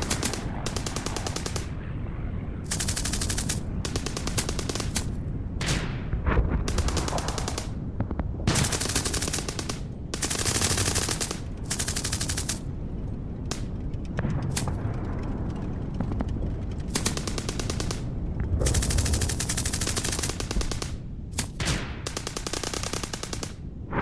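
World War II battle ambience: burst after burst of machine-gun fire, each about half a second to a second and a half long, over a steady low rumble of distant battle.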